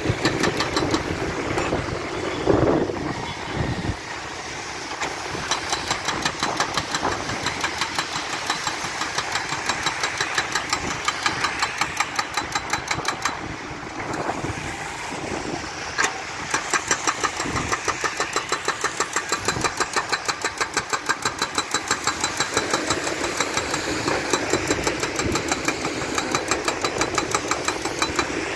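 Hydraulic breaker hammer on a wheeled excavator pounding and breaking up asphalt road surface: rapid, evenly spaced blows in runs of several seconds with short pauses between, over the excavator's diesel engine running.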